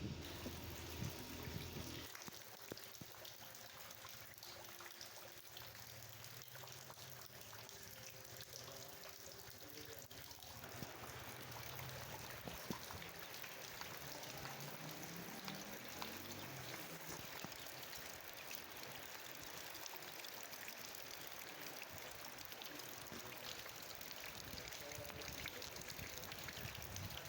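Rain falling steadily, a soft even hiss of drops that grows fuller about ten seconds in.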